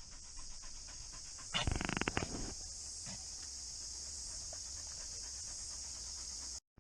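Cicadas droning steadily in a high, even hiss, with a dog panting briefly about one and a half seconds in.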